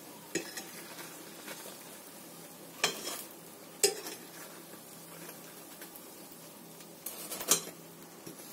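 Vegetable oil sizzling steadily in a frying pan around frying potato pirozhki, with a metal fork and spatula clinking against the pan a few times, about three and four seconds in and again around seven seconds in.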